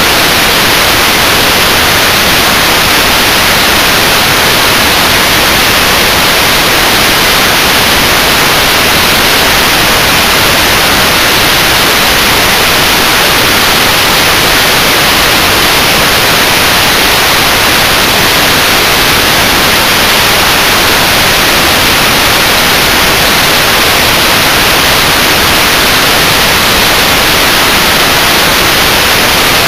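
Loud, steady TV static: an unbroken hiss of white noise that never changes.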